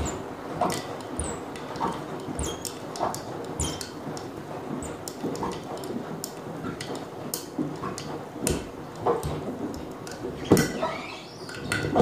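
Beko front-loading washing machine tumbling a wash load of sandals, including Birkenstocks: water sloshing in the turning drum, irregular knocks as the sandals drop against the drum and door, and short squeaks. The loudest knock comes about ten and a half seconds in.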